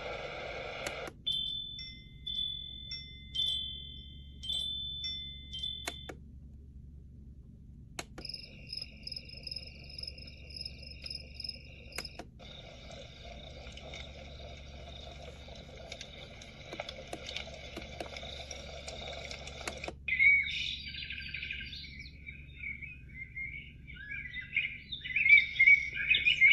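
JALL K8 wake-up light alarm clock playing its built-in alarm sounds one after another through its small speaker. First a repeating high electronic beep pattern, then a steady high tone for a few seconds, then a stretch of steady hiss. In the last six seconds come synthetic bird chirps, the loudest part.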